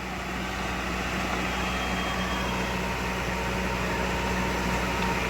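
An engine running steadily, a constant low hum that grows slightly louder over the few seconds.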